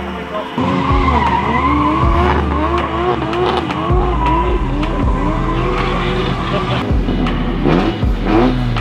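Drift car engine held at high revs, its note rising and falling constantly, with tyres squealing as the car slides.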